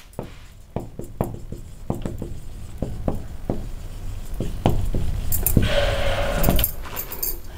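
Marker pen writing on a whiteboard: a run of short taps and strokes, about two or three a second, with one longer drawn-out stroke about six seconds in.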